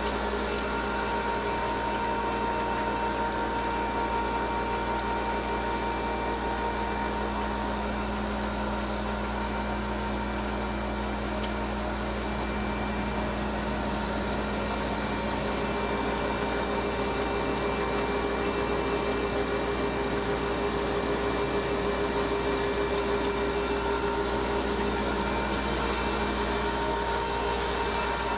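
Hensley Super Auger bulk feed trailer's hydraulically driven auger running steadily while unloading feed, with the truck's engine and hydraulic drive giving a constant hum and whine.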